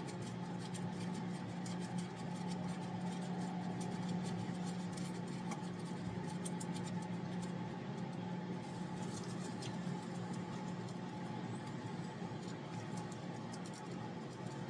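Faint small clicks and scrapes of hands handling metal parts while fitting a fuel pump, over a steady low hum.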